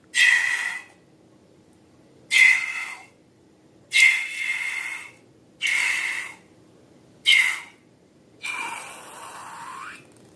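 Air squeezed out through a balloon's neck, squealing in about six short bursts; the last is longer and fainter.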